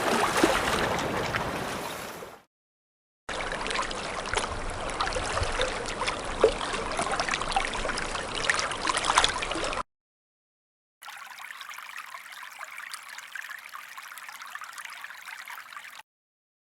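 A run of separate water sound effects: a loud wash of water fades out in the first two seconds, then after a short silence about six seconds of running, trickling water with small splashes and drips. After another brief gap comes a quieter, thinner trickle of about five seconds that cuts off suddenly.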